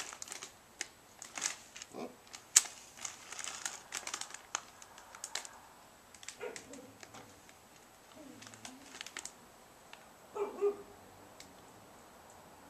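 Matchbox rattling and matches being scraped to light a solid-fuel tablet stove: a run of small clicks and scrapes, the sharpest about two and a half seconds in, dying down after about six seconds.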